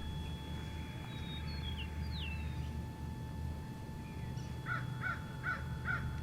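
A crow cawing four times in quick succession in the second half, over a steady low outdoor rumble. Faint thin bird whistles come earlier.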